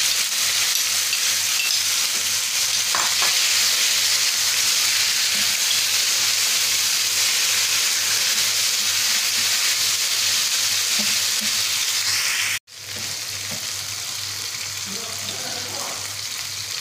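Marinated chicken pieces sizzling steadily as they fry in hot oil in a non-stick frying pan, being partly fried before the stir-fry and stirred now and then with a wooden spatula. The sound cuts out abruptly for an instant about twelve and a half seconds in, then the sizzling carries on a little quieter.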